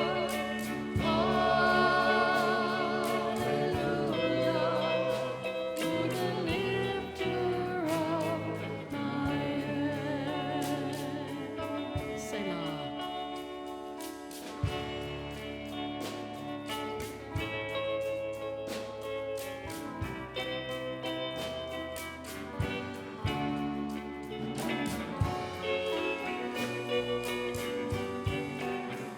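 Worship music: voices singing with vibrato over a band, with light percussion strikes keeping a beat.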